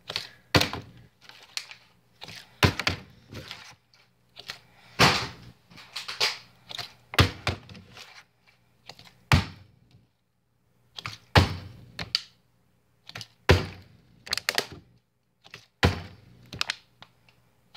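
Plastic water bottle knocking and thudding as it is flipped and handled: a long string of irregular thunks and clacks, some with a short rattle after them.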